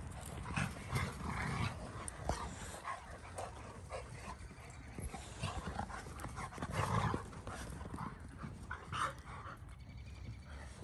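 Dogs playing rough together: irregular bursts of dog vocal noises and panting, loudest about seven seconds in.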